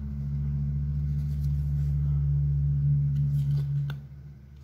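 A steady low electrical or motor hum that swells louder and drops away sharply about four seconds in, with a couple of faint clicks from trading cards being handled near the end.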